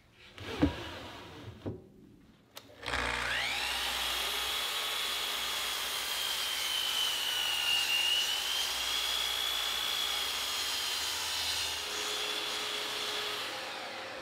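A few knocks from handling plywood, then a Festool miter saw's motor whines up to speed and crosscuts 3/4-inch plywood drawer parts to length, the whine dipping under load about eight seconds in before recovering and winding down near the end.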